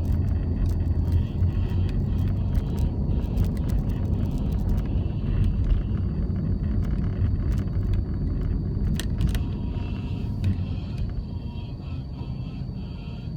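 Car driving on a city road: a steady low rumble of engine and tyre noise with scattered light clicks, easing slightly near the end.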